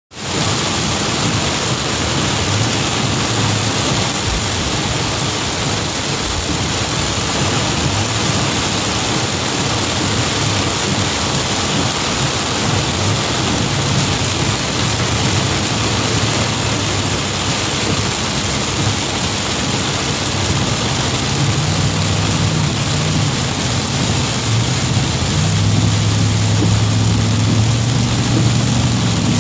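Heavy rain hitting a car's roof and windshield, heard from inside the moving car, mixed with steady road and engine noise. A low engine hum grows louder near the end.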